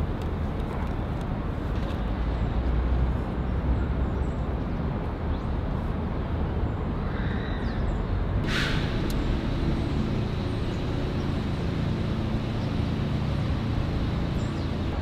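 City street traffic: a steady rumble of passing vehicles. About eight and a half seconds in there is a short sharp hiss, and after it a steady low engine hum.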